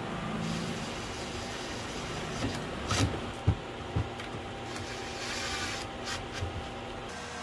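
Hand work on an inverter's cable terminals: rubbing and handling noise, with a few sharp knocks of a driver bit and metal cable lugs about three to four seconds in, as the terminal screws are fastened. A faint steady hum runs underneath.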